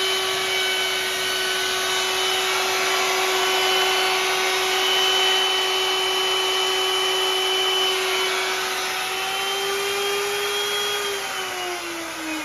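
A small electric motor running with a steady whine over a broad hiss. Near the end it is switched off, and its pitch falls as it winds down.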